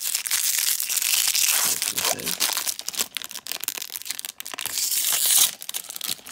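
A shiny plastic blind-bag wrapper being torn open and crumpled by hand, a dense crinkling crackle that gets loudest about five seconds in, then eases off.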